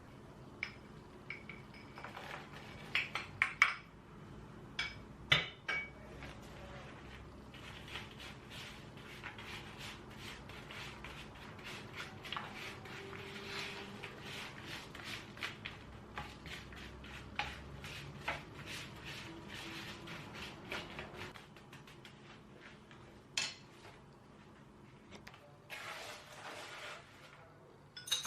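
Kitchen dishes and utensils clinking. A few sharp clinks come first, then a long run of quick, light clicking and scraping, and one more sharp clink near the end.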